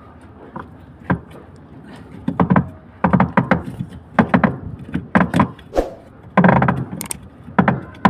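Irregular knocks and clunks from a Godrej washing machine's gearbox and belt pulley as they are turned and rocked by hand to check the gearbox, coming in louder clusters from a couple of seconds in.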